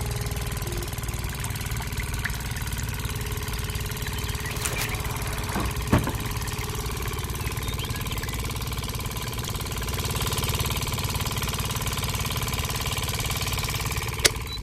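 A small engine running steadily at idle, with a sharp knock about six seconds in and another near the end.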